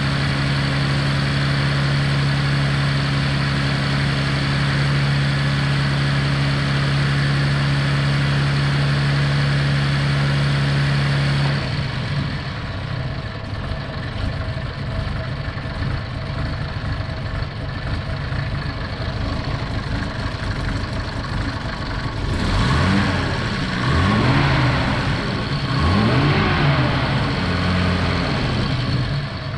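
1955 Jaguar XK140's 3.4-litre twin-cam straight-six on its cold-start fast idle with the auxiliary starting carburettor working, a steady engine note under a hiss. About twelve seconds in, the engine suddenly drops to a slower idle as the thermostatic Otter switch opens and the starting-carburettor solenoid closes, the sign that the engine has warmed up. Near the end the revs rise and fall three times.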